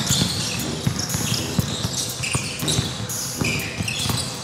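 Basketball game on a hardwood court: a ball bouncing and many short knocks of play, with brief high squeaks of sneakers on the wooden floor.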